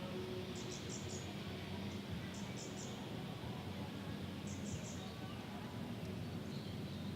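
A small bird chirping in quick groups of three or four high notes, repeated about every two seconds, over a steady low rumble of city background noise.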